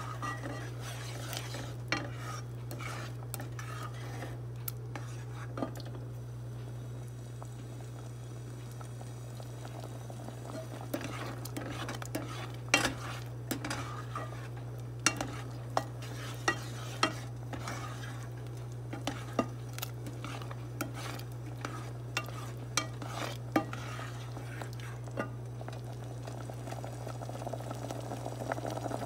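A spoon stirring a thickening cream-and-corn sauce in a stainless steel saucepan, with irregular sharp clicks and taps of the spoon against the pan, busiest in the middle stretch. A steady low hum runs underneath.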